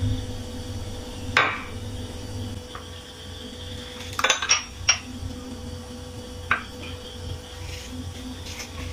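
Metal spoon clinking against a glass bowl and a china plate while spooning a custard mixture onto bread. There are a few sharp clinks, with a quick run of three or four about four seconds in, over a faint steady hum.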